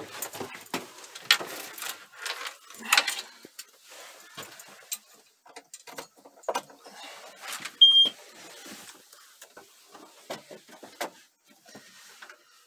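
Clunks, clicks and rustling as someone moves about inside a John Deere 6155R tractor cab, with a single short high beep about eight seconds in; the engine is not running.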